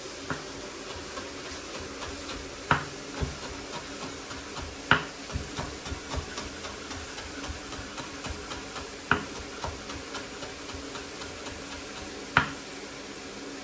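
Chef's knife chopping fresh parsley on a bamboo cutting board: a steady run of light, quick taps of the blade, with four louder knocks on the board spread through.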